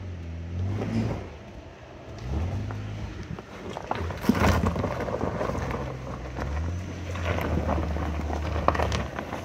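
Rivian R1T electric pickup crawling down a rocky sand trail: its tyres crunch and pop over rock and gravel, loudest from about four seconds in as it passes close by. Under it runs a low drone that rises and falls in pitch, then holds steady near the end.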